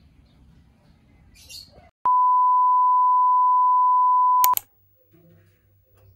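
A single steady, pure electronic beep tone, loud and unchanging in pitch, starting about two seconds in and held for about two and a half seconds before cutting off abruptly with a click.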